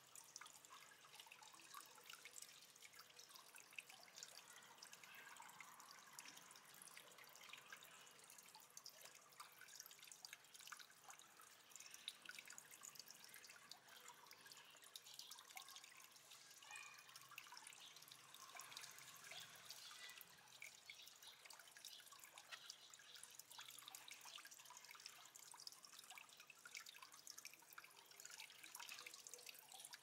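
Faint, steady trickling and splashing of water falling in an aquarium waterfall, a continuous patter of small drips and splashes.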